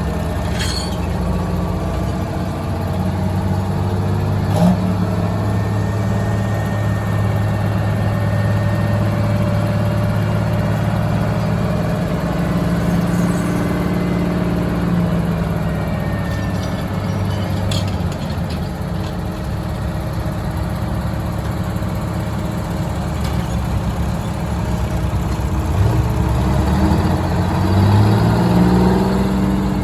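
The engine of a vintage construction machine running steadily, then revving up and getting louder near the end.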